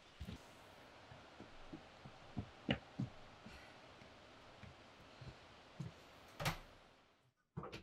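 Footsteps thudding irregularly on the ground over a steady background hiss, a few steps much louder than the rest; the hiss fades out near the end.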